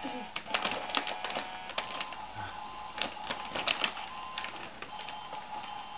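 Irregular clicks and crinkles of a boxed toy cement truck and its wrapping being handled, with a faint steady tone in the first two seconds.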